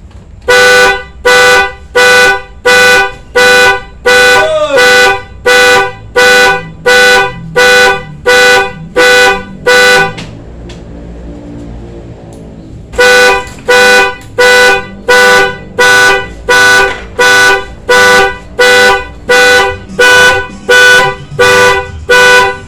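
Honda Vario scooter horn converted to an alarm, sounding a steady run of short, loud beeps, about one and a half a second, with one rising chirp a few seconds in. The beeping stops for about three seconds near the middle, then resumes at the same pace.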